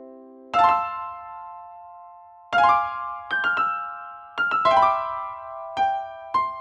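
Piano-like keyboard music: a held note cuts off about half a second in, then separate struck chords and single notes follow, each ringing and decaying, at an uneven pace of roughly one or two a second.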